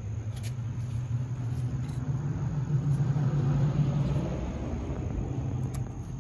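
A motor vehicle passing by: a low engine rumble that grows louder to a peak about three to four seconds in, then fades away.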